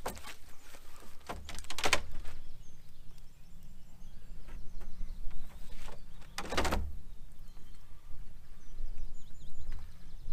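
Fishing keepnet being lifted and emptied into a landing net: three short splashy swishes of water streaming off the mesh, over a steady wind rumble, with faint birdsong.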